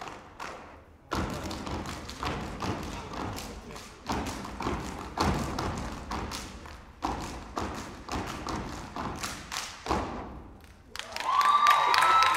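A step team stomping and clapping in unison on a stage floor, a rhythmic string of sharp hits. About eleven seconds in, after a short pause, the audience breaks into loud cheering.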